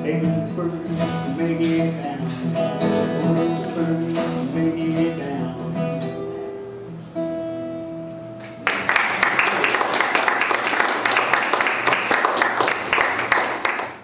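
Acoustic guitar playing the song's closing bars and ending on a held final chord about eight and a half seconds in, followed by a small audience clapping.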